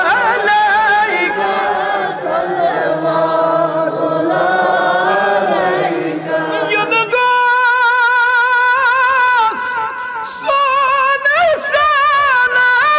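Unaccompanied devotional singing of a Salaam to the Prophet: men and boys sing together for the first seven seconds or so, then a single male voice carries on alone, high and with a wide vibrato, amplified through a microphone.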